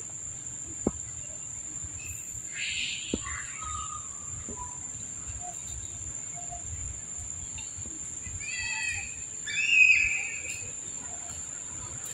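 Young long-tailed macaques squealing during rough play: two short, high-pitched squeals about eight and a half and ten seconds in, the second the loudest. A steady high insect drone runs underneath.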